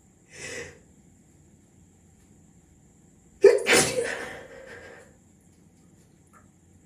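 A person sneezing once, loudly, about three and a half seconds in, the sneeze trailing off over a second or so. A short breathy sound comes near the start.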